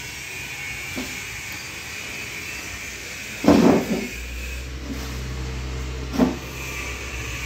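Steady room hum and hiss, broken by two dull thuds: a loud one about three and a half seconds in and a shorter one near six seconds. A deeper low hum sets in after the first thud.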